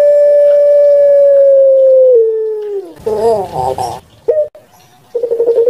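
Puter pelung (ringneck dove, Streptopelia risoria) giving its long drawn-out coo. A loud steady note steps down and slides lower about two seconds in, then breaks into a rough warbling 'gerukk-kwokk' ending about three seconds in. After a short clipped note and a brief pause, the next coo starts near the end.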